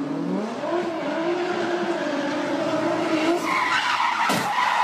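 A car's engine revving up, then holding a high steady note, with tyres squealing from about three and a half seconds in and a sharp hit just before the end.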